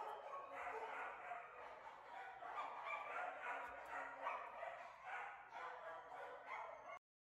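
A young terrier-mix dog making short yips and barks while playing rough with a person's hand. The sound stops abruptly near the end.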